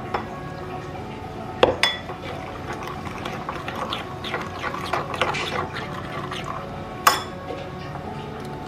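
Thick spinach puree poured from a blender jar into semolina in a ceramic bowl, and a steel ladle stirring the batter, scraping around the bowl. Two sharp clinks of metal on the bowl stand out, one at about two seconds in and one near seven seconds in.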